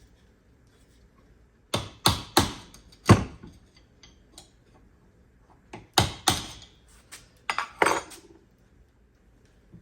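Hammer blows on the steel yoke of an ATV prop shaft, knocking it over to press in a U-joint bearing cap: four sharp metallic strikes about two seconds in, then another group of about six between six and eight seconds.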